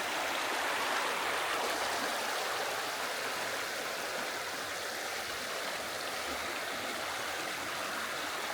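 Mountain stream rushing and splashing over rocks, a steady, even flow of water.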